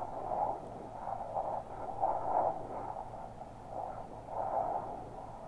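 Steady road and engine noise inside a moving car, swelling and easing a little every second or so.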